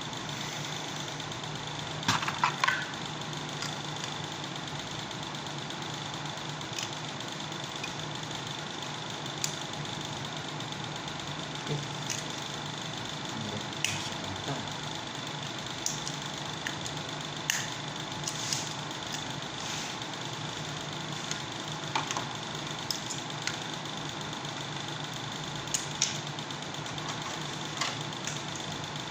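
Scattered clicks, taps and knocks of hands and tools working on a window air conditioner while a new universal control board is fitted, over a steady hum. The loudest cluster of knocks comes about two seconds in.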